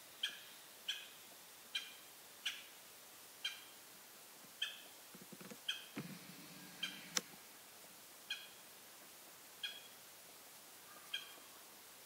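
Japanese green woodpecker calling: a series of short, high single call notes, about one a second, unevenly spaced. A faint low rumble lies under the calls about five to seven seconds in.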